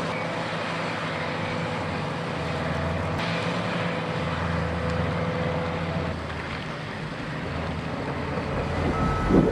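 Heavy diesel engine of a Caterpillar D9T crawler bulldozer running steadily under load, a low drone with a rushing mechanical noise on top. Near the end a vehicle's reversing beeper starts.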